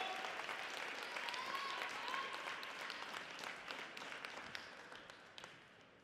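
Audience in an ice rink applauding, with a cheer about a second and a half in. The clapping thins and dies away over the last couple of seconds.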